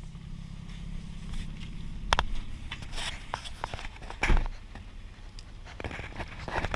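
Toyota 1G-FE inline-six idling steadily when warm, with a few irregular clicks and thumps over it, the loudest about two seconds and four seconds in.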